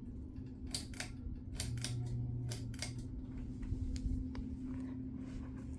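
Hampton Bay Landmark III Plus ceiling fan running on low speed with a steady hum. A quick series of light clicks and knocks comes in the first three seconds.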